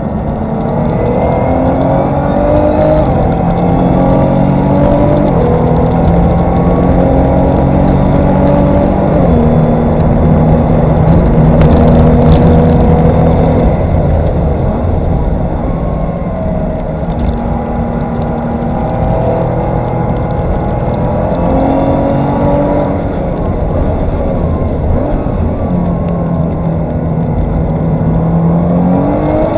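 Tuned Nissan GT-R R35's twin-turbo V6 with an aftermarket exhaust, heard from inside the cabin while lapping a race circuit. The engine note climbs and steps through gear changes under hard acceleration, is loudest about twelve seconds in, and falls away and rises again as the car slows for corners and powers out.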